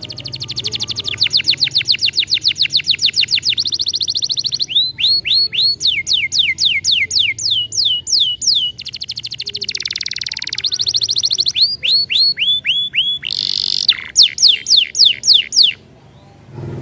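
Domestic canary singing a long song of rapid trills: runs of fast repeated high notes, series of falling sweeps at about four or five a second, and buzzy rolls in between. The song stops abruptly near the end.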